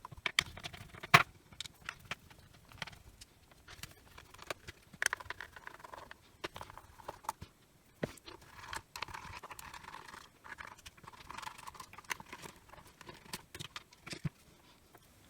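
Torx screws being undone from a plastic power-tool casing: scattered sharp clicks, with short scraping rasps from the screwdriver turning, about five seconds in and again between about nine and twelve seconds.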